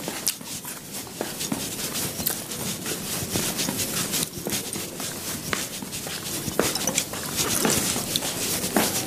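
Scattered clicks, taps and shuffling, like footsteps and handling noise.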